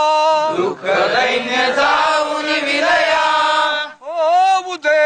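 Men singing a Marathi patriotic song in call-and-response. A single male voice holds the end of a line, then about a second in the whole group sings the line back together for about three seconds. Near the end the lone leader starts the next line.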